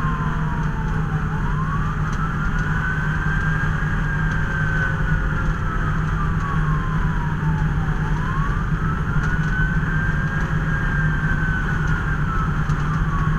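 Fire apparatus siren on a slow wail, rising and falling about every seven seconds, over the steady low drone of the truck's engine and road noise.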